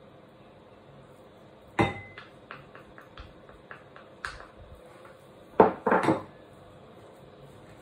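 Ceramic bowls and a wooden spoon clinking and knocking as a small bowl of coconut oil is tipped and tapped out into a ceramic mixing bowl. There is a sharp, ringing clink about two seconds in, a run of light taps, and then a louder cluster of knocks near the end.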